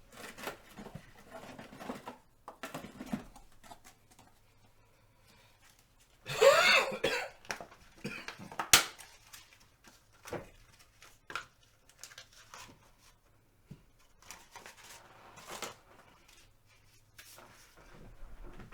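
A person coughing loudly about six seconds in, followed by a sharp click. Scattered faint clicks and rustles of small objects being handled come before and after.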